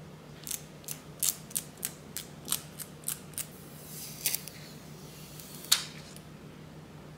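Scissors snipping through protective film: a quick run of about nine short cuts, then a double snip and one louder, sharper cut near the end.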